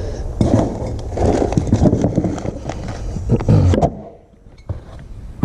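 Rustling and scraping with a few sharp clicks as a new aluminum differential cover, its bolts and its packaging are handled; the noise drops off about four seconds in.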